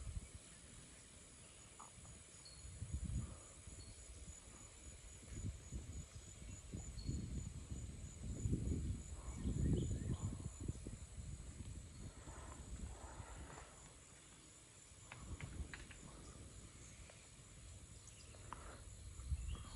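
Insects trilling steadily in a high, continuous drone, with irregular low gusts of wind buffeting the microphone. The gusts are strongest about eight to ten seconds in.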